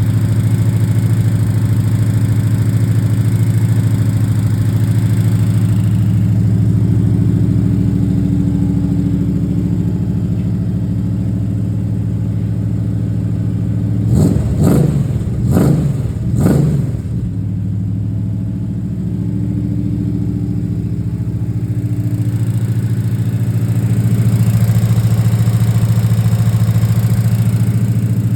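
Camaro's 350 small-block V8 on its first run, held steady for cam break-in with a little lifter noise. About halfway through it is blipped three times in quick succession, then settles back to steady running.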